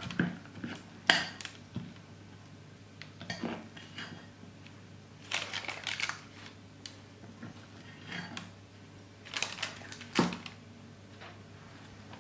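A metal spring-loaded cookie scoop scraping sticky dough from a glass bowl and clicking as its lever releases the dough onto a parchment-lined baking tray. The paper rustles with it, in short bursts a few times: about a second in, a cluster in the middle, and again near the end.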